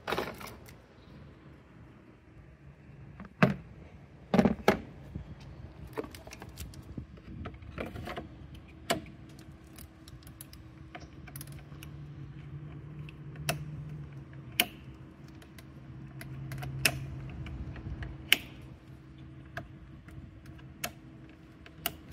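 Plastic wiring-harness connectors of a Mini Cooper's engine control module (DME) clicking and rattling as they are handled and unplugged, with a dozen or so sharp clicks scattered through, the loudest few about four seconds in. A faint low hum runs underneath.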